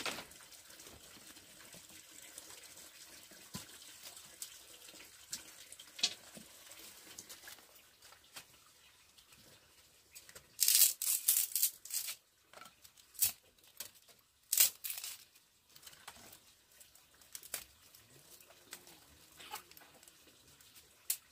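Water splashing in a few short bursts, with scattered small clicks and knocks.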